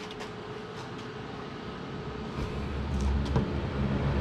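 Central Machinery 8-inch portable ventilator, with a flexible duct hose on its outlet, switched on low: about halfway through, a low motor hum starts and grows steadily louder as the fan spins up.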